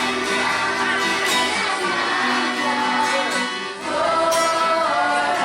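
A group of voices chanting a devotional kirtan together, singing long held notes.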